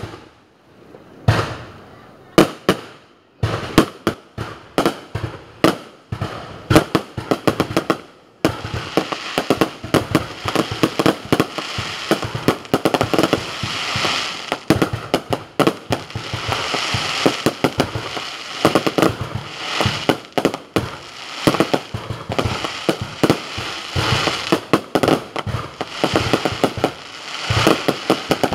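Aerial fireworks: separate shell bursts go off with short gaps between them. About eight seconds in they give way to a dense, unbroken run of bangs and crackling, the closing barrage of the display.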